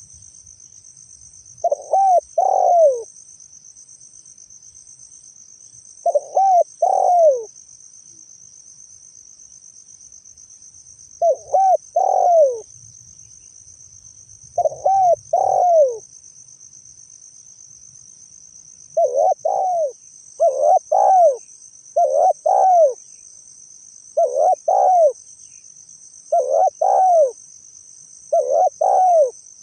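Spotted dove cooing: about ten short phrases of two or three low, arching coos, several seconds apart at first and every second or two in the latter half. A steady high-pitched insect trill runs beneath.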